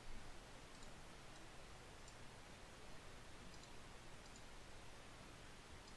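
Faint computer mouse clicks, a handful spread irregularly, over a near-silent background hiss.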